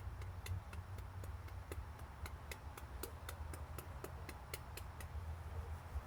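Faint, fairly even ticking, about three to four light clicks a second, over a low steady hum.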